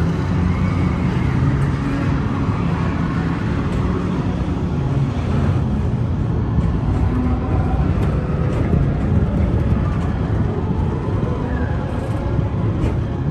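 Steady low rumble of the PeopleMover ride car running along its elevated track.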